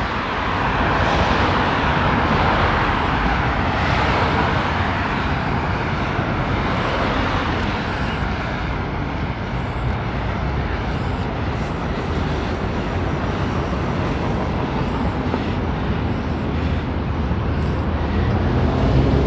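Steady rushing noise of road traffic and wind on the microphone, heard from a moving bicycle.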